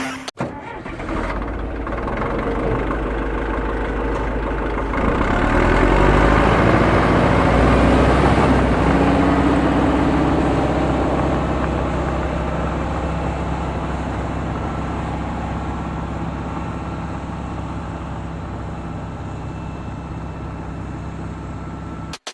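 An engine running: it grows louder over the first few seconds, rises briefly in pitch about nine seconds in, then slowly fades.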